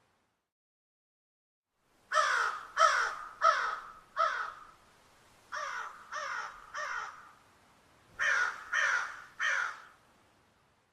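Crows cawing: after about two seconds of silence, a run of four harsh caws, then three quieter caws, then three more loud caws.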